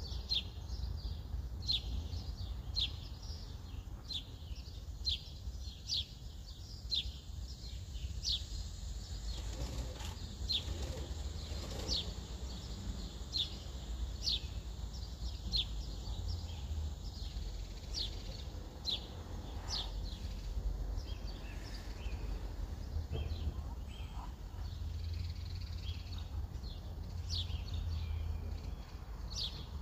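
A bird chirping over and over, short high notes that fall in pitch, about one to two a second, over a steady low rumble.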